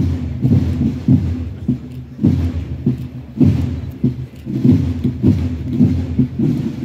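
Procession march band playing, heard mostly as low brass chords and a bass drum beating about every 0.6 s, bass-heavy and muffled.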